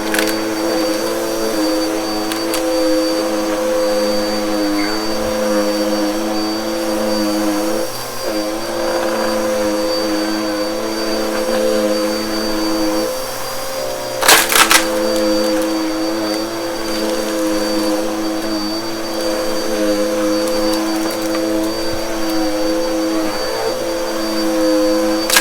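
Bissell vacuum cleaner running on a shag rug, its motor giving a steady whine with a high tone above it and small dips in pitch. About halfway through comes a brief, loud crackle.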